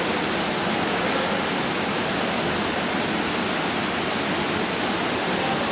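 Steady rushing ambience of an indoor competition swimming pool hall, an even noise like running water at a constant level.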